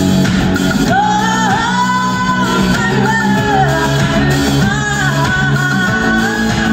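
Live pop-rock band performance: a woman singing a melody that comes in about a second in, over electric guitar, bass, drums and keyboards, recorded from the audience in a concert hall.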